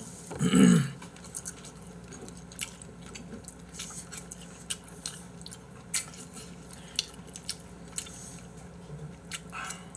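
People eating noodles: scattered light clicks of chopsticks against bowls, with quiet chewing. There is a brief voice sound about half a second in.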